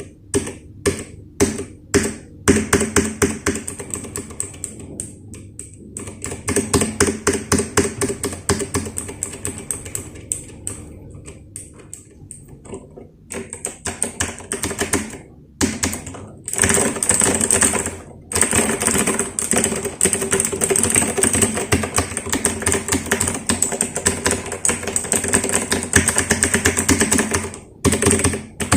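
Royal Kludge RK100 mechanical keyboard being typed on: a few separate keystrokes, then fast typing with a handful of short pauses, running without a break through most of the second half.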